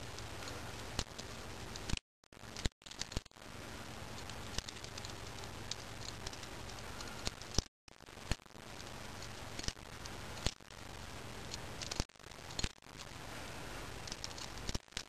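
Miniature balisong being handled, giving scattered light metallic clicks and rattles at irregular moments over a low steady hum.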